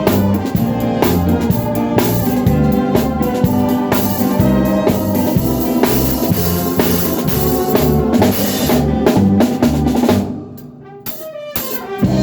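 Live band music: a drum kit keeping a steady beat under bass and electronic organ. About ten seconds in the band briefly drops out, then comes back in.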